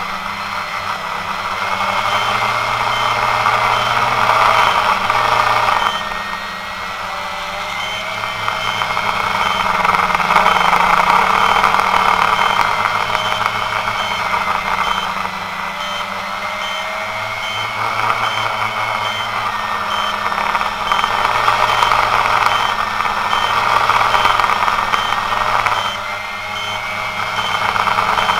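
Quanum Nova quadcopter's motors and propellers whining, heard close from the camera on the drone, the pitch and level swelling and easing with throttle and dipping about six seconds in and again near the end.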